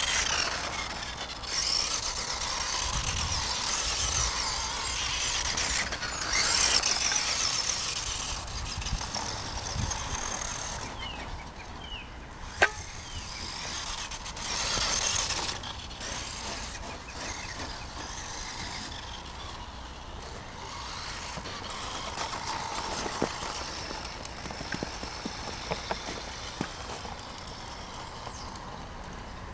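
Radio-controlled Tamiya Holiday Buggy's electric motor and gears whining in bursts as the throttle is worked. A single sharp click comes about twelve seconds in.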